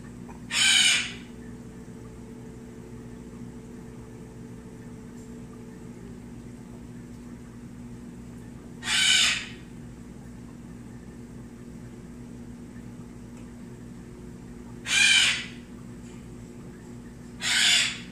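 Steady low electrical hum of a reef aquarium's pumps and equipment. Four short, harsh, noisy bursts, each about half a second long, come about a second in, near the middle, and twice near the end, and they are louder than the hum.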